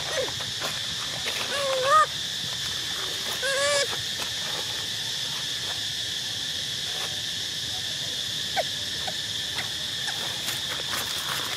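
Steady high-pitched drone of insects. Over it come two short calls that rise and fall, about two seconds in and again near four seconds in.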